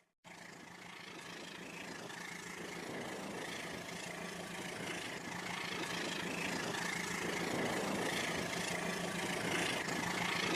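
An engine running with a steady low hum, starting right after a brief moment of silence and growing gradually louder.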